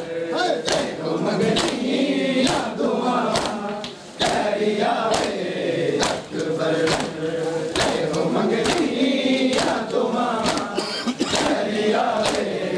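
Men's voices chanting a Muharram lament (noha) together. Sharp hand slaps of matam chest-beating keep an even beat about once a second.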